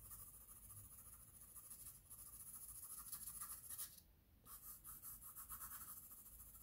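Faint scratching of a 2H graphite pencil shading on drawing paper in quick repeated strokes, pausing briefly about two seconds in and again about four seconds in as the pencil lifts.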